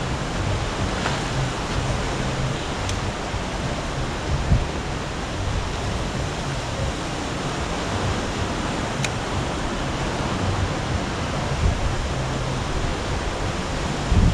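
Steady wash of ocean surf and wind, an even hiss with no let-up, with a soft low thump about four and a half seconds in.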